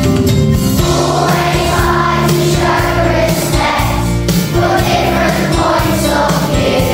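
Background song: voices singing over an instrumental backing, with the singing coming in about a second in.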